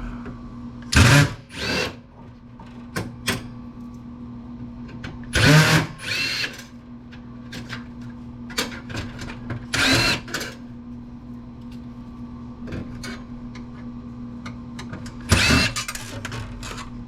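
Cordless drill-driver run in short bursts, its motor whining up and down, about six times, as screws are backed out of a computer case. Small clicks of metal parts being handled between the bursts, over a steady low hum.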